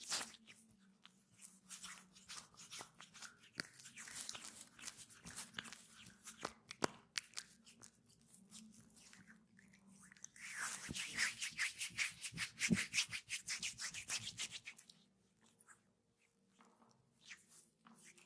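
Hands rubbing and stroking oiled skin during a massage, with a run of quick, rhythmic strokes from about ten to fourteen seconds in.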